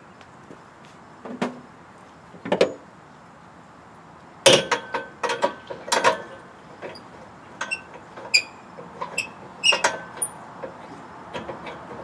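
Steel parts and tools being handled: separate clanks and knocks, the loudest in a quick cluster about halfway through, then lighter clinks, some with a short metallic ring.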